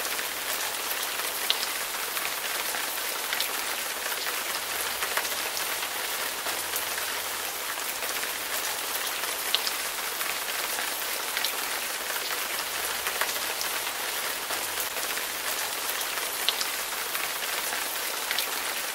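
Steady rain falling on a car's windshield and roof, heard from inside the car: an even hiss with a single sharper drop tick now and then.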